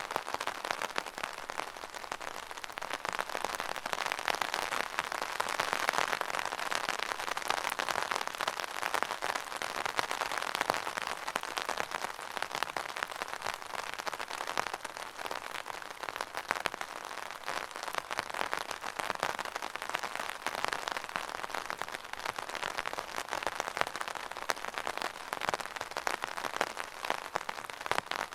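Rain falling on an open umbrella: a dense, steady spray of small drops tapping on the taut fabric canopy, swelling and easing slightly in strength.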